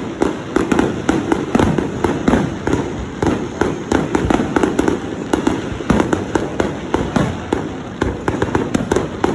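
Fireworks display: aerial shells bursting in quick, near-continuous succession, several sharp bangs a second over a rumbling background.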